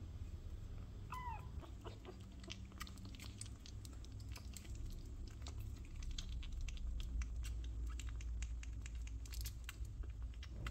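A kitten gives one short mew about a second in, then many quick wet clicks and smacks as it suckles cat formula milk from a feeding bottle.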